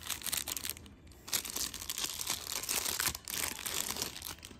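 Packaging being crinkled and torn open by hand: dense crackling in spells, with short breaks about a second in and just after three seconds.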